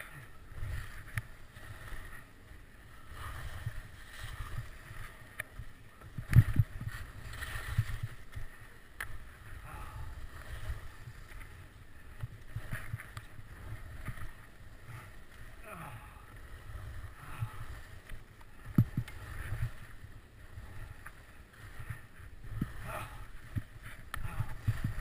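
Skis scraping and chattering over hard, choppy moguls, with the rumble of motion and wind on the camera microphone and irregular thumps as the skis hit bumps; the loudest thump comes about six seconds in.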